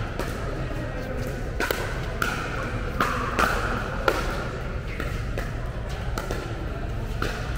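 Pickleball paddles hitting a plastic ball in a fast rally, a run of sharp pops between about a second and four seconds in, echoing in a large indoor hall.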